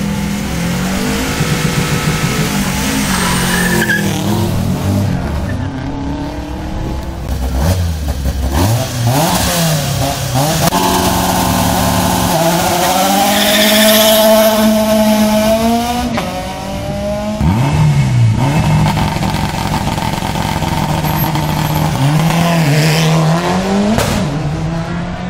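Rally cars at a start line, first a Subaru Impreza and then a Citroën C2, revving their engines hard. Several times the revs drop and sweep up again as a car launches and accelerates away through the gears.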